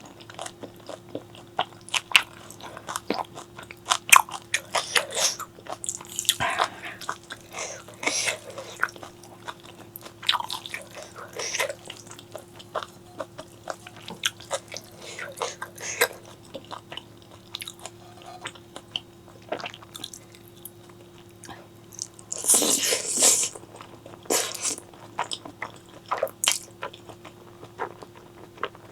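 Close-miked eating sounds: chewing and crunching with irregular wet clicks and smacks, and one longer, louder noisy stretch about two-thirds of the way through. A faint steady hum runs underneath.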